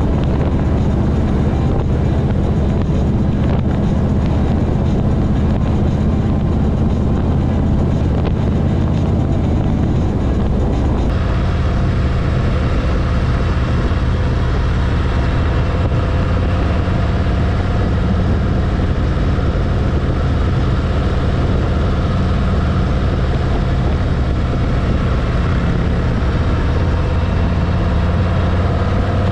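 Harley-Davidson touring motorcycle's V-twin engine running at steady cruising speed, with wind and road noise. The sound changes abruptly about 11 seconds in, with more hiss in the upper range afterwards.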